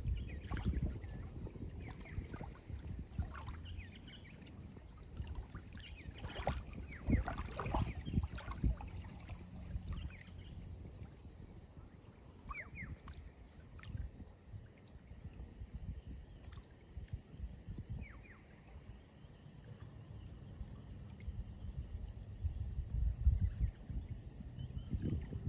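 Outdoor beach ambience: gusting wind buffeting the microphone over water lapping at the shore, with a few short, faint high chirps.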